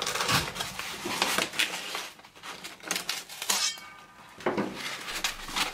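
Cardboard bottle tube and crumpled packing paper rustling and scraping as the tube is lifted from a box and a glass bottle is slid out of it, with a short squeaky scrape about three and a half seconds in.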